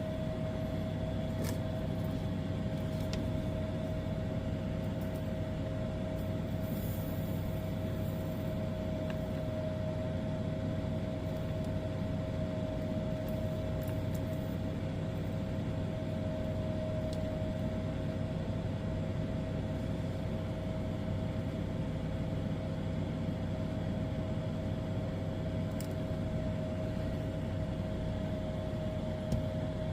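A steady mechanical hum with a constant whining tone over a low rumble, unchanging throughout, with a few faint ticks.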